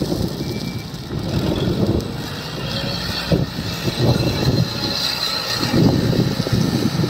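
Wheel loader's diesel engine working hard in uneven surges as it lifts a bucket of gravel toward a tipper truck, with a faint whine that rises and falls.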